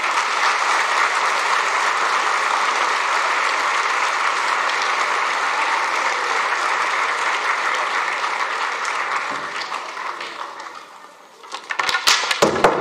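Theatre audience applauding, fading out after about ten seconds. Near the end, a quick clatter of knocks as brooms drop onto the wooden stage floor.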